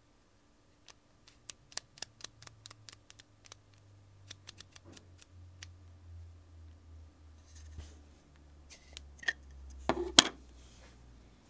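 Aperture ring of a 1973 Leitz Noctilux 50mm f/1.2 lens being turned by hand, its click stops giving a quick series of sharp detent clicks. Low handling rumble follows, with a few louder knocks about ten seconds in.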